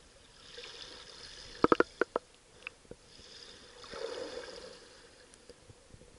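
Muffled sound of shallow seawater moving around a camera held underwater: two swells of hissing swish, and a quick run of sharp clicks a little under two seconds in.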